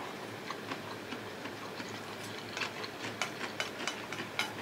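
Eating utensils clicking and scraping against a bowl while food is scooped up: faint, sparse clicks at first, coming quicker and louder, several a second, from about halfway through.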